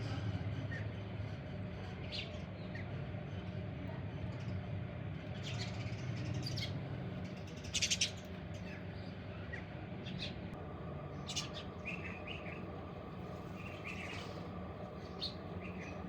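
Birds chirping in short, scattered calls, some brief warbling ones a little past the middle, over a steady low hum.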